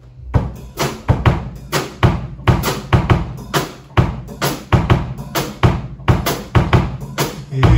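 Rock drum kit playing an intro beat on its own, kick and snare hits with cymbal wash at a steady tempo. Just before the end the full band comes in with bass and electric guitar.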